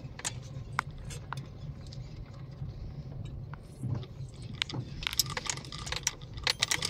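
Inside a car's cabin rolling slowly over a rough sandy dirt track: a steady low rumble of engine and tyres, with frequent small clicks and rattles that grow busier in the last two seconds.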